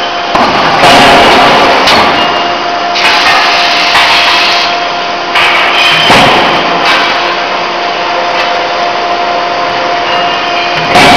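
CNC forging hammer striking a workpiece in a closed die: heavy blows about once a second for the first seven seconds, then one more near the end. A steady machine hum runs under them.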